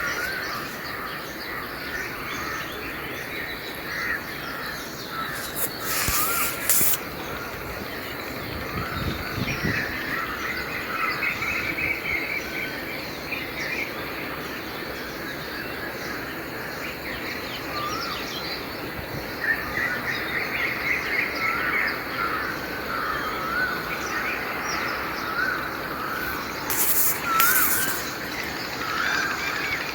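Morning chorus of many birds chirping and trilling over a steady background hiss, with two brief hissy bursts about six seconds in and near the end.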